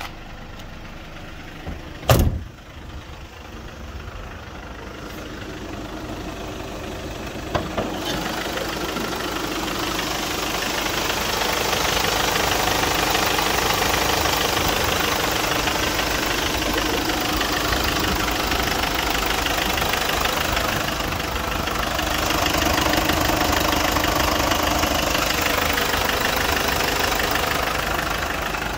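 Mercedes Sprinter 313 CDI's four-cylinder diesel engine idling steadily, louder once heard over the open engine bay. A sharp thump about two seconds in, a door being shut.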